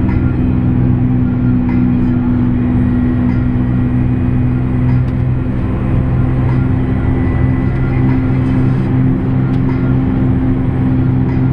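JCB Fastrac 8310 tractor's six-cylinder diesel engine running at a steady road speed, heard from inside the cab as an even low drone.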